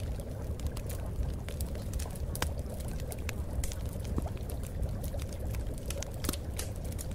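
Steady water-like rushing noise, full in the low end, with scattered crackles and clicks all through.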